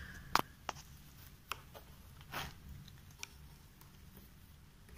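A few faint, sharp clicks and taps, the loudest about half a second in. They come from a jigsaw blade being handled against the Bosch GST 90 BE's tool-free SDS blade clamp while a blade is fitted.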